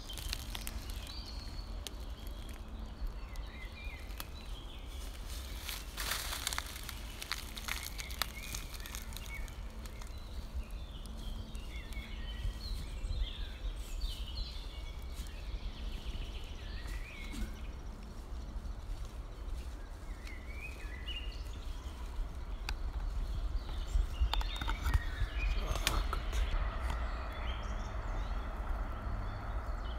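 Woodland ambience: scattered small songbird chirps and calls over a steady low rumble, with a few sharp clicks.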